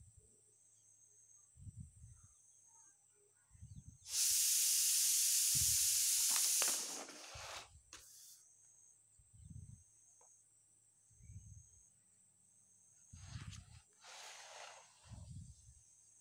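A loud, steady hiss lasting nearly three seconds, starting about four seconds in, with soft low thuds repeating about every two seconds throughout.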